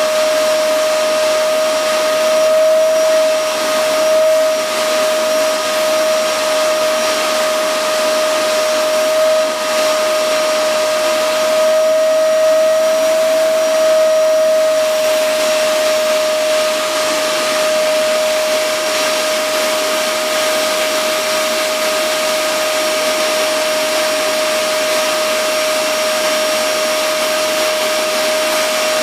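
Vacuum cleaner motor running steadily: a loud, even whine over a rush of air, its pitch wavering slightly now and then.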